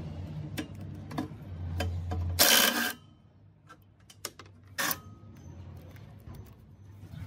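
Clicks and clinks of metal tools and parts being handled, over a low hum for the first two and a half seconds, with a loud half-second burst of noise about two and a half seconds in and a shorter one near five seconds.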